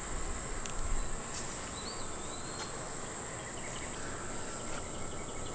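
Steady, high-pitched insect chorus of crickets or similar summer insects, a continuous shrill drone that holds one pitch, with a short whistle about two seconds in.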